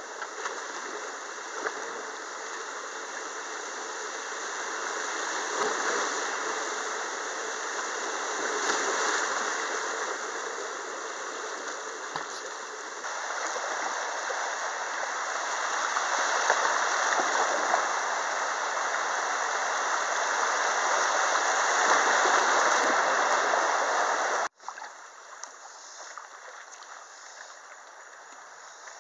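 Rushing water of a shallow rocky river riffle around a kayak, swelling and easing and loudest shortly before cutting off suddenly near the end to a quieter, calmer flow.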